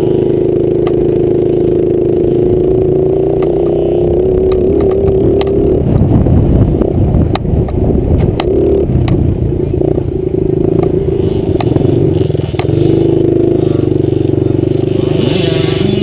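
65cc two-stroke dirt bike engine running at a steady high pitch, then revving up and down with clattering knocks for several seconds in the middle, steadying again about three seconds before the end.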